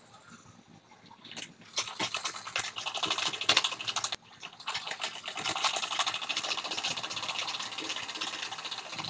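Sewing machine stitching a seam: a fast, even needle rattle in two runs. The first run stops abruptly about four seconds in, and the second starts about a second later and carries on. Fabric rustles and is handled before the first run.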